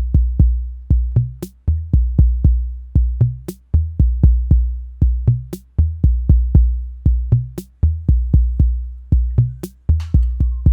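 Arturia DrumBrute analog drum machine playing a steady beat: a deep kick drum hitting repeatedly, with pitched tom hits and a sharp high hit about every two seconds.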